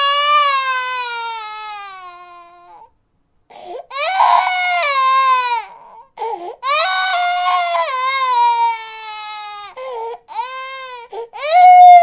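Infant crying: long, drawn-out wails that slide down in pitch as each one tails off, broken by short catching breaths and sobs, with a moment's silence about three seconds in.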